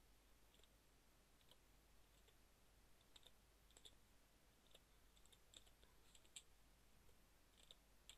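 Faint, slow, irregular key clicks of a computer keyboard as a word is typed, the clicks coming more often in the second half.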